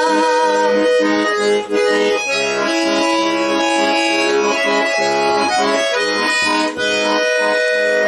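Garmon (Russian button accordion) playing an instrumental passage of a sentimental song: a melody over sustained chords.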